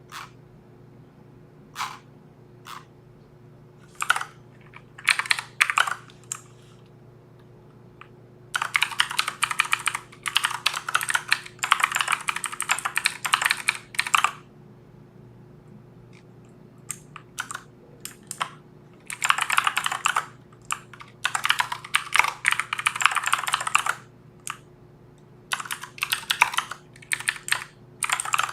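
Typing on a computer keyboard: a few single key clicks, then three long runs of rapid clicking, the longest about six seconds, over a faint steady hum.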